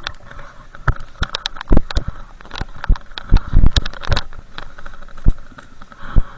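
Irregular close-up knocks, thumps and snow crunching as a snowboarder struggles and shuffles his board through deep powder, with a steady hiss underneath.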